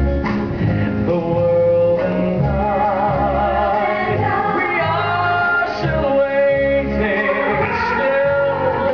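Live musical-theatre song: a male lead singing with a choir and orchestra, the sung notes carrying a clear vibrato over a steady bass line.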